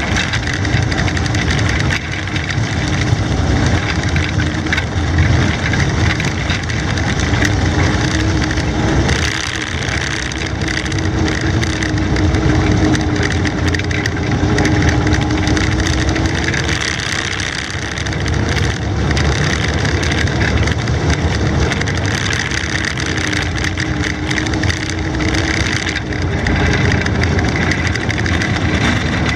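Studebaker M29C Weasel tracked carrier on the move: its Studebaker Champion six-cylinder engine running steadily under way, with its tracks rolling over the grass. The engine note wavers slightly, with a brief dip about nine seconds in.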